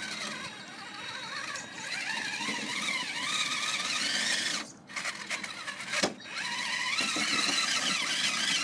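Traxxas Summit RC rock crawler's electric motor and gear drivetrain whining, its pitch rising and falling with the throttle as it crawls over rocks. The whine drops out briefly, then a sharp knock comes about six seconds in.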